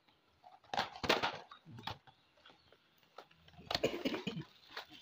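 Cardboard packaging of a soundbar box being handled, giving scraping and rustling in a few short bursts: about a second in, briefly near two seconds, and again for about a second near four seconds.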